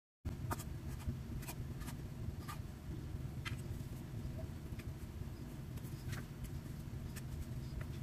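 Hands pulling apart and shaping soft bread dough and setting the pieces down on a wooden board: scattered faint ticks and clicks at irregular times over a steady low hum.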